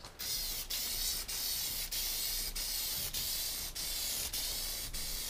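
Aerosol can of Plasti Dip spraying in a continuous hiss as a wheel is re-coated, lasting about five seconds.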